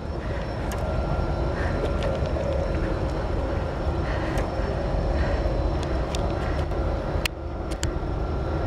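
Natural gas compressor station running: a steady industrial drone with several held tones over a deep low rumble, loud even at its quietest time of day. A few sharp clicks come about seven seconds in.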